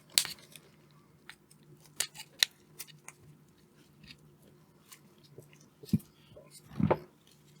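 Side cutters snipping off the mounting tab of a 5-pin automotive relay: a few sharp clicks and crunches, the loudest just after the start and about two and a half seconds in. Two duller knocks follow near the end.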